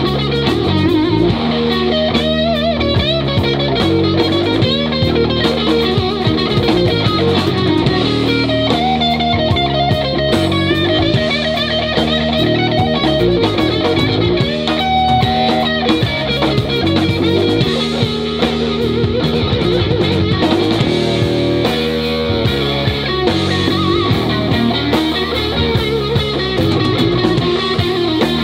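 Live blues-rock band playing an instrumental passage: electric guitar lead with bent, wavering notes over electric bass and drum kit.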